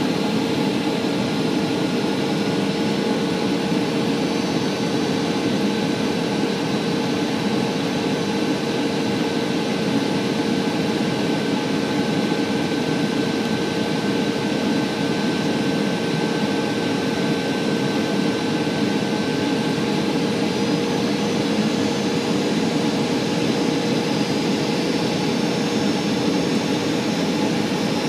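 Cabin noise inside a Boeing 737 airliner on approach: the steady drone of the jet engines and rushing airflow, with a few steady whining tones over it. One of the higher tones fades out about two-thirds of the way through.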